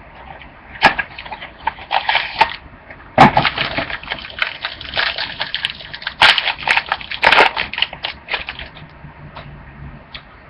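Trading card packs and cards being handled: crinkling and rustling of the wrappers with irregular sharp clicks and crackles, busiest in the middle and dying away near the end.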